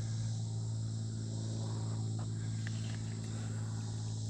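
Insects, crickets or similar, chirring steadily over a constant low hum, with a couple of faint clicks about halfway through.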